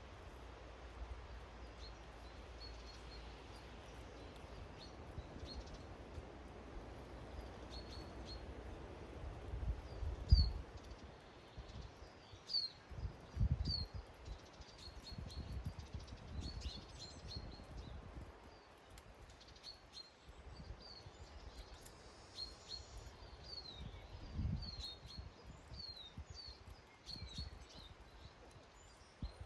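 Small garden songbirds chirping with short, high calls scattered throughout, over a steady outdoor background. A few low thumps stand out, the loudest about ten seconds in.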